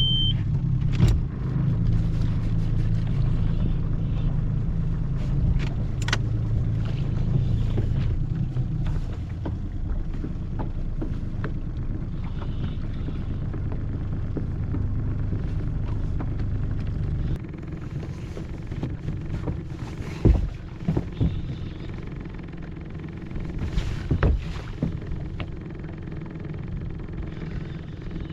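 Small boat's outboard motor running steadily at trolling speed, turning quieter about two-thirds of the way through, with a few sharp knocks near the end.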